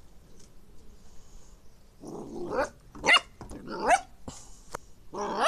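Puppy whining and yipping: a few short, high cries rising in pitch from about two seconds in, then a louder, wavering whine at the end.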